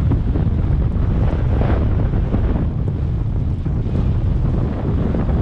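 Wind rushing over the microphone of a skier moving downhill, a loud steady rumble, with the hiss of skis sliding over groomed snow swelling about a second and a half in.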